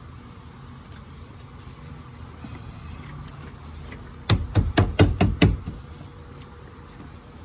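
About six hard thumps in quick succession, a little past the middle, as the car's interior trim pieces are slammed back into place by hand.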